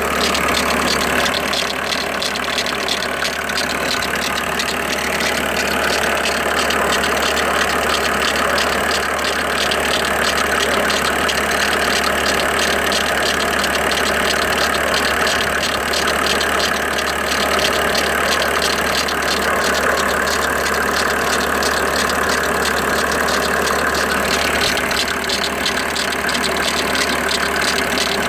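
Engine idling steadily with a fast, even ticking running through it. This is the odd noise being recorded to be identified.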